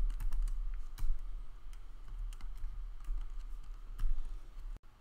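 Computer keyboard keys tapped in scattered, irregular clicks over a low steady hum, the loudest about a second in and near four seconds in.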